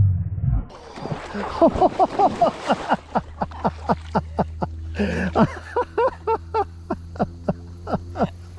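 People laughing hard in quick repeated bursts, with a low steady hum underneath from about three seconds in.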